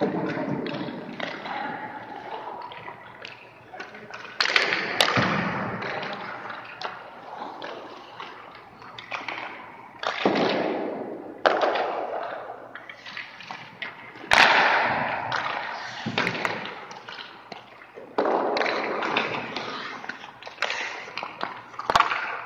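Hockey skates scraping and carving on rink ice in repeated swells that start suddenly and fade, with a few sharp knocks.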